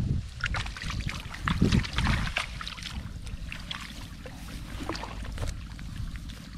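Muddy water splashing and sloshing in a plastic bucket holding live fish. A cluster of splashes comes in the first couple of seconds, then it goes quieter over a low wind rumble on the microphone.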